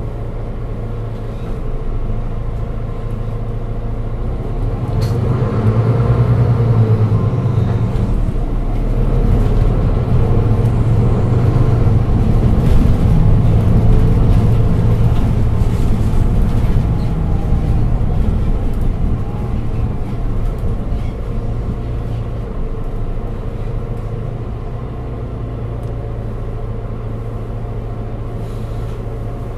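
Mercedes-Benz Citaro 2G articulated bus engine running with a steady low drone. It grows louder for about ten seconds in the middle, then eases back, with a single knock about five seconds in.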